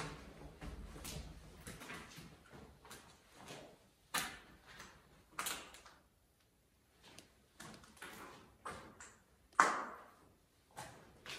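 Irregular footsteps and scuffs on a concrete floor, roughly one a second, echoing in a small room, with a sharper knock about ten seconds in.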